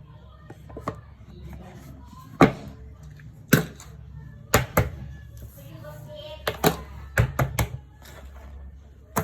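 Irregular sharp clicks and knocks, some in quick pairs, from small objects being handled.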